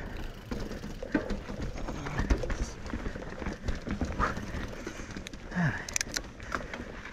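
Mountain bike riding down a dirt trail: tyres rolling on dirt, with irregular knocks and rattles from the bike over bumps.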